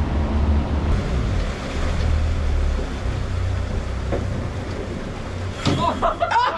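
Motorboat under way: a steady low engine drone mixed with the rush of water and wind. Voices and laughter come in near the end.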